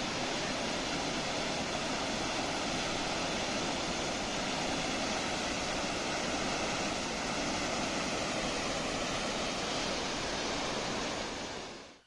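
Steady rushing of the Aharbal waterfall on the Vishav river, a large volume of water plunging into a pool below, with no break in it until it fades out near the end.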